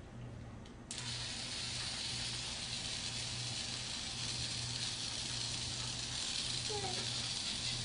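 Small cordless drill/driver switched on about a second in and left running, a steady hissing whir.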